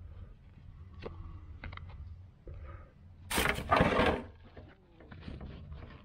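Hands handling new shoes and their packaging: a few small clicks and taps, then a loud burst of rustling about three and a half seconds in.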